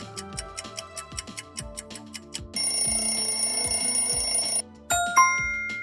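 Quiz countdown timer sound effects over background music: a clock ticking quickly, then an alarm bell ringing for about two seconds, then a bright chime that rings out and fades as time runs out.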